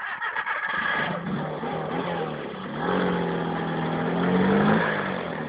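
Skoda 120's rear-mounted four-cylinder engine revving as the car drives on a dirt track, its pitch rising and falling with the throttle. It is loudest near the end, then the revs drop away.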